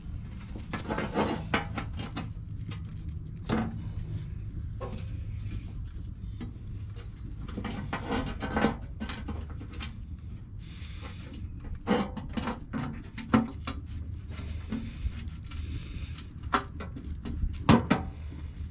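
Irregular clicks, knocks and scrapes of metal being handled as a stainless steel rocket burner is fitted under a kamado grill. The sharpest knocks come near the end.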